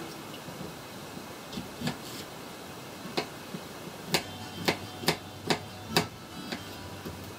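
Kitchen knife chopping vegetables on a cutting board: sharp knocks of the blade on the board, a few scattered at first, then a quicker run of about two a second past the middle.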